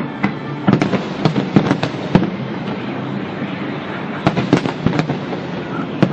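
Fireworks going off: a quick string of sharp bangs in the first two seconds, then another cluster of bangs about four to five seconds in, over a steady hiss.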